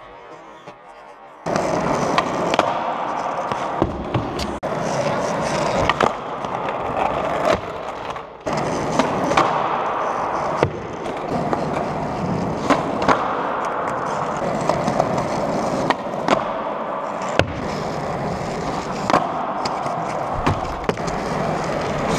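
Skateboard wheels rolling steadily on a smooth concrete floor, starting about a second and a half in. Sharp clacks of the tail popping and the board slapping down on landings come every second or two.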